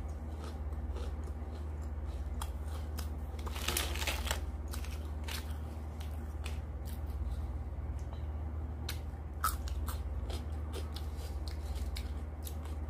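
Hand-eating sounds close to the microphone: rice and curry being mixed by hand on a plate, with scattered crisp crackles and clicks and a longer crackling stretch about four seconds in. A steady low hum runs underneath.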